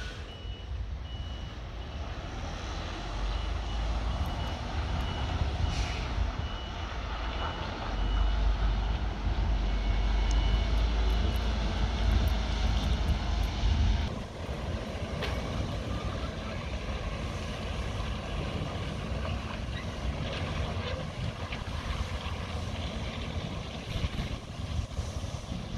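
Mercedes-Benz tipper truck's diesel engine running with its tipping body raised, over a series of short high warning beeps. About halfway through, the sound drops abruptly to a quieter, steady engine rumble.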